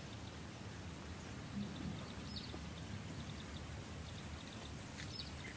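Outdoor background noise, a steady low rumble, with a bird giving two short high chirps about two and a half seconds apart.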